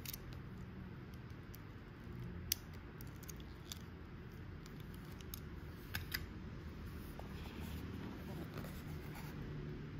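Scattered light clicks and taps of a small die-cast model car, a Tomica Premium Lamborghini Diablo SV, being turned over in the fingers. The loudest click comes about two and a half seconds in.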